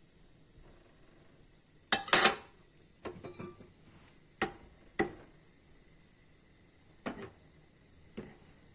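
Kitchenware clattering: a dish and utensil knocking and clinking in about six short, sharp strokes, the loudest cluster about two seconds in.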